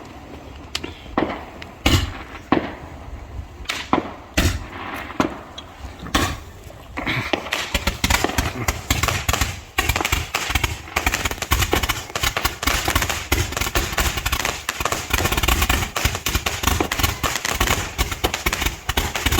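Fireworks going off: single sharp bangs every half second or so, then, from about seven seconds in, a dense, unbroken barrage of rapid crackling reports, as from a multi-shot cake or crackling effects.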